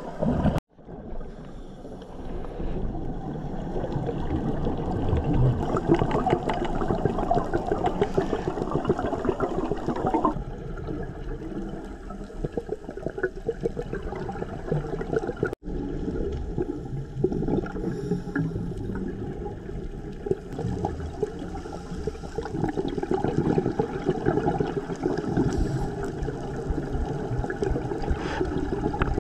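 Underwater sound picked up by a dive camera: gurgling, rushing water and bubble noise over a constant fine crackle. It drops out twice for a moment, about half a second in and about halfway through.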